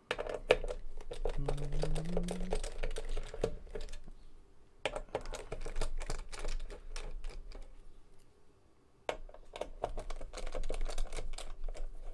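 Screwdriver working the screws out of a car amplifier's back cover: a run of irregular small clicks and scrapes, with a short rising squeak a second or two in and a brief pause about three quarters of the way through.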